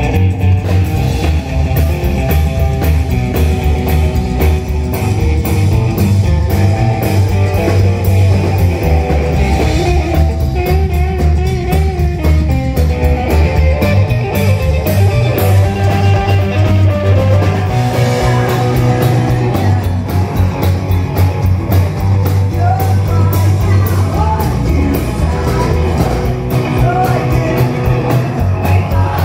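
A psychobilly rock band playing live at loud volume: guitar, bass and drum kit, with singing.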